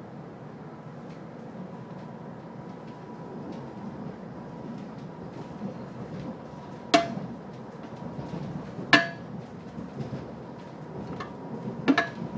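Inside a moving S-Bahn electric train: the steady rumble of the car running along the track with a faint steady whine, broken by three sharp metallic clanks in the second half, the last one doubled.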